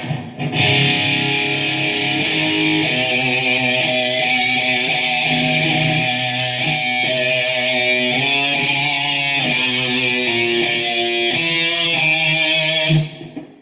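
Gibson Les Paul Special electric guitar played through an amplifier with a heavily distorted tone, a loud run of changing chords and notes. It stops abruptly about a second before the end.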